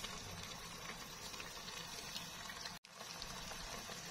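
Faint steady simmering of chicken legs in a shallow pool of seasoned braising liquid in a wok. The sound cuts out completely for a moment about three seconds in.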